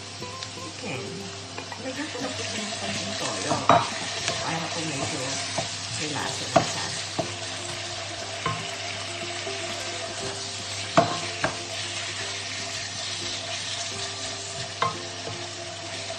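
Raw chicken pieces sizzling in hot oil with sautéed onion and garlic in a white-lined, likely ceramic-coated, pan while a wooden spatula stirs them. The spatula knocks sharply against the pan a few times.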